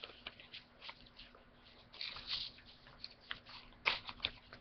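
Stack of origami paper being handled: rustling and crinkling of the sheets, with a denser patch of rustle about two seconds in and a sharp crackle near the end.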